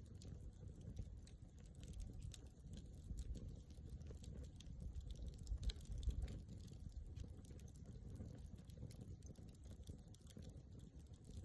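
Wood campfire crackling: irregular small snaps and pops over a low rumble of flame, with a couple of louder pops about six seconds in.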